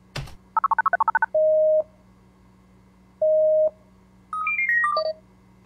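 Video-call sound effects from a laptop: a click, a quick run of about eight dialing beeps, two long ringing tones, then a short falling run of beeps as the call connects.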